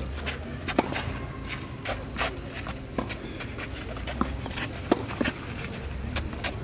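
Tennis balls struck by rackets and bouncing on a clay court during a quick rally: a string of sharp pocks, roughly one a second.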